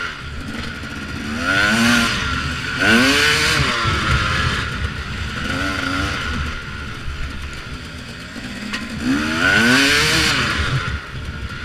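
Two-stroke 250 cc KTM enduro dirt bike engine being ridden on a trail, its pitch rising and falling with about four bursts of throttle, over the rattle of the bike on rough ground.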